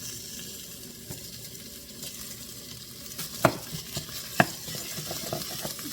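Loose sausage meat sizzling as it browns in a frying pan, in a pan hot enough to be scorching though set on low. A utensil knocks sharply against the pan twice about halfway through, followed by a few lighter taps.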